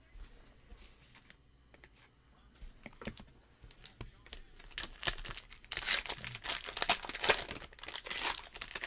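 Foil pack of 2019 Certified Football trading cards being handled and torn open: faint small rustles and ticks at first, then loud, dense crinkling of the foil wrapper from about five seconds in.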